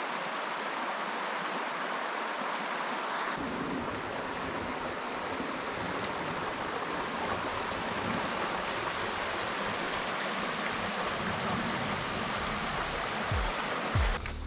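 Shallow river running over a stony bed: a steady rush and babble of water. The water sound shifts slightly about three and a half seconds in, and music comes in at the very end.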